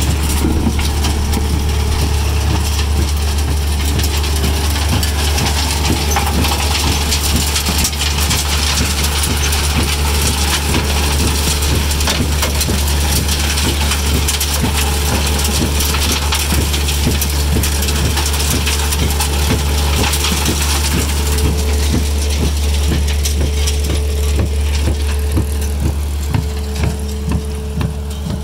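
Komptech Joker mobile trommel screen running: a steady low machine drone under a constant clatter of soil and wood chips tumbling in the rotating screen drum. The clatter eases a little near the end.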